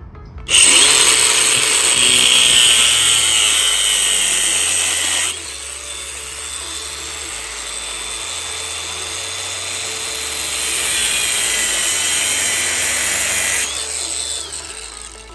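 Angle grinder running at speed and cutting into the ignition switch housing on a steering column. Its high whine starts about half a second in, eases off about five seconds in, builds again, then dies away near the end.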